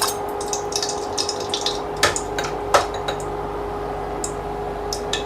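Oil and ghee heating in a pan, with a faint steady hiss over a constant hum, and a few sharp clinks of a metal utensil against the pan.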